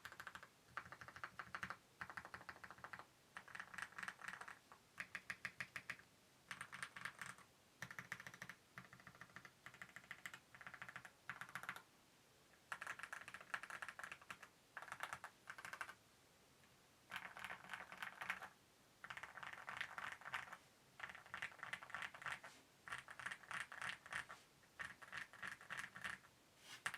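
Custom Mammoth75 mechanical keyboard with a PC plate, stock Aqua King linear switches and KAT Iron keycaps being typed on in bursts of quick keystrokes, with short pauses between; a sound the typist likens to bubbles.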